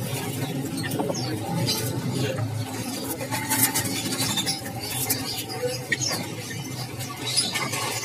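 Many small caged songbirds chirping and squeaking in short, scattered calls over a steady background murmur, with occasional light clicks.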